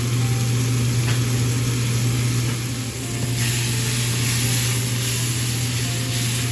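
Mushrooms sizzling in a pan, the sizzle swelling to a louder hiss about halfway through, over a steady low hum.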